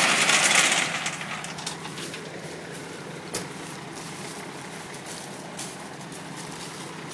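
Dump truck engine running steadily with its bed raised to tip a load of #57 gravel. A loud rushing noise fills the first second, then drops away, with a single knock about three seconds in.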